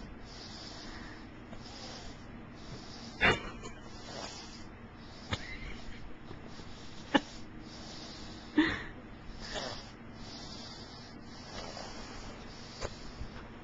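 A sleeping toddler's breathing and thumb-sucking close to the microphone: about half a dozen short sniffs, breaths and mouth clicks, scattered over a quiet steady background.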